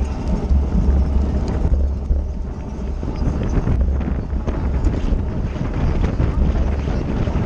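Wind buffeting the microphone of a camera on a racing bicycle at speed: a heavy, fluctuating low rumble of rushing air.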